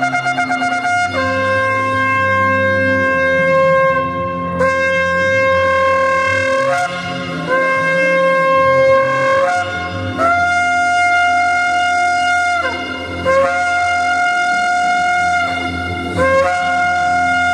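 A shofar blown in long held notes, switching back and forth between a lower and a higher pitch with short slides between them, each note lasting one to three seconds.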